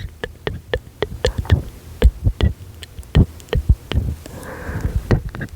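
Close-microphone mouth clicks and lip smacks of semi-inaudible whispering, irregular and several a second, many with a low thud of breath or lips on the microphone. A short breathy whisper comes near the end.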